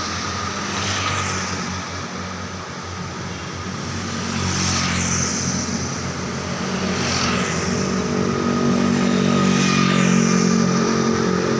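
City street traffic: vehicles pass one after another, each drawing a falling whoosh, over a steady low engine hum that grows louder toward the end.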